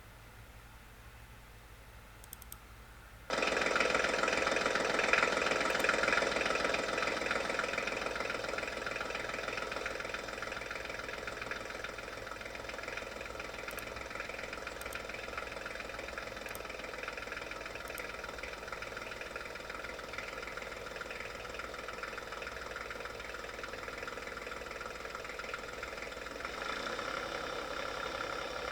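An engine comes in abruptly about three seconds in and runs steadily, loudest at first and then settling to an even level.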